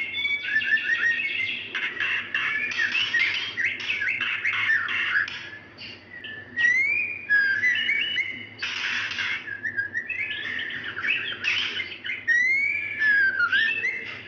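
Female white-rumped shama calling for a male, the whining call of a hen in breeding condition: a dense run of quick, varied whistles and chirps with sliding notes, briefly easing off about six seconds in.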